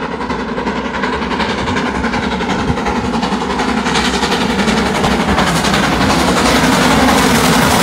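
Freight train of container wagons passing, a steady rumble and rattle of wheels on the rails that grows louder and hissier from about halfway through.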